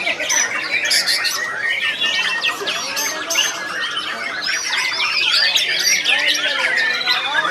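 White-rumped shama (murai batu) singing a continuous, fast-changing song of whistled notes that glide up and down, mixed with sharp high chips.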